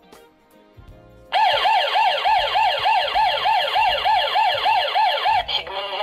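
CS108 WiFi/GSM home alarm panel's siren sounding a fast warble, about four rising-and-falling sweeps a second, starting a little over a second in and cutting off near the end: the armed system has been tripped by its PIR motion sensor.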